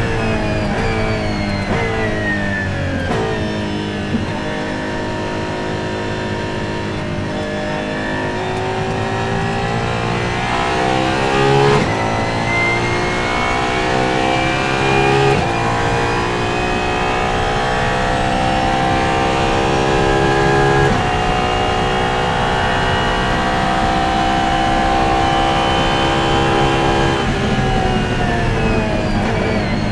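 Apollo Intensa Emozione's 6.3-litre naturally aspirated V12, heard on board at racing speed. The engine note falls as the car slows at first, then climbs through the gears with quick sequential upshifts about twelve, fifteen and twenty-one seconds in. It holds high revs flat out and falls again near the end as the driver lifts off.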